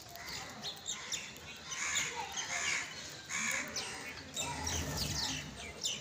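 House sparrows chirping: a flock giving many short, quick chirps that overlap throughout.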